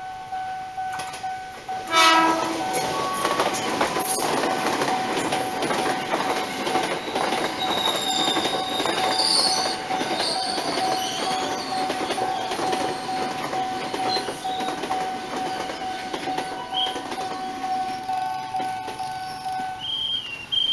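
Jakarta electric commuter train passing close through a level crossing, its wheels clattering over the rails, with a short loud horn blast about two seconds in. The crossing's warning alarm keeps sounding a steady tone underneath.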